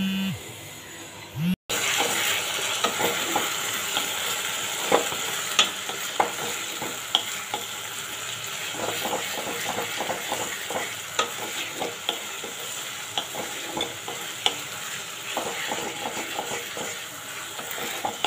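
Sliced onions frying in hot oil in a non-stick kadai, sizzling steadily, while a wooden spatula stirs them with frequent scraping clicks against the pan. A short steady hum plays in the first second and a half.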